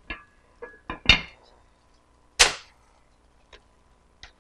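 A handful of short, sharp knocks and clicks of glass bowls and utensils being handled on a kitchen counter, the loudest about a second in and another halfway through, with fainter ticks near the end.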